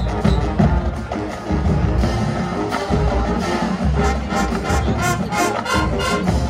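Marching band playing live: brass with drums, and a quick run of sharp percussion strokes in the second half.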